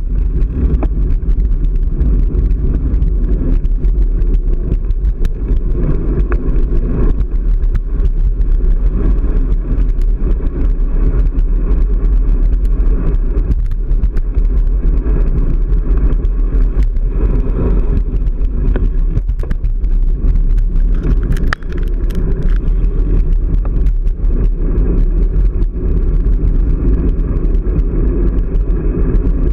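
Wind buffeting and road rumble on a handlebar-mounted camera's microphone while riding a bicycle over rough asphalt: a steady, loud, low rumble.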